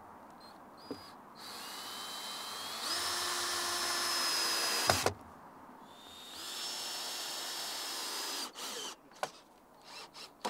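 Cordless drill driving deck screws into timber decking boards: two runs of a few seconds each, the motor's whine stepping up in pitch and then holding steady. The first run ends in a sharp click, and a few light clicks follow near the end.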